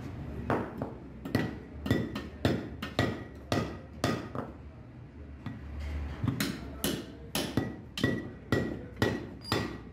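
Hammer blows on a steel truck brake shoe, about two a second with a short metallic ring, peening over the rivets that fix a new brake lining to the shoe. The blows stop for about two seconds midway, then resume.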